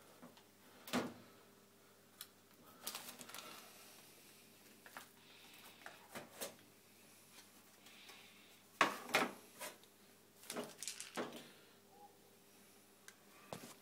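Scattered clicks and knocks of kitchen things being handled, in a small tiled room, with the loudest cluster of sharp clacks about nine seconds in.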